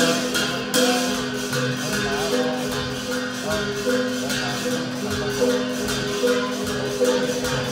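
Music for a Karenni traditional dance, with a steady beat and held tones, and a short noisy crash about a second in.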